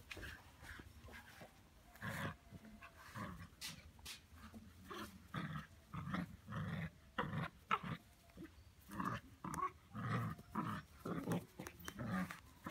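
Eight-week-old Belgian Malinois puppy growling in a long run of short bursts, about two a second, as it plays tug-of-war with a towel.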